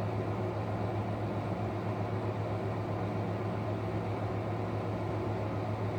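Steady low hum with an even hiss: unchanging background room noise.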